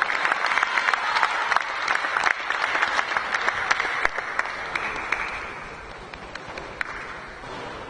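Audience applause between points of a table tennis match, the clapping thinning out and fading away over the last few seconds, with a few last single claps near the end.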